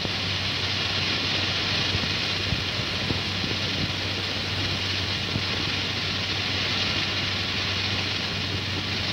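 Steady rushing aircraft noise over a constant low hum, as on an old film soundtrack, with the X-15 rocket plane sliding out on its landing skids.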